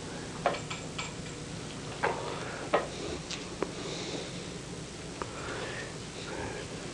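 Quiet classroom sound over a steady hiss: half a dozen small sharp knocks and clicks, spread unevenly, with some rustling and sniffing between them.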